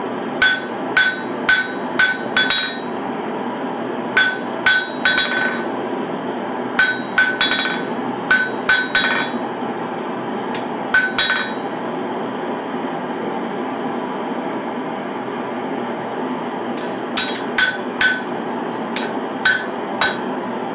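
Hand hammer striking a steel katana blade on an anvil, beveling the blade in its final forging: runs of quick blows, each with a bright metallic ring. The blows break off for about six seconds after the middle, then come back in a last flurry near the end, all over a steady background hum of shop machinery.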